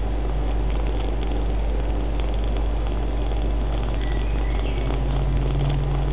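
Kitten purring as a low, steady rumble right at the microphone, with fur brushing and crackling against it.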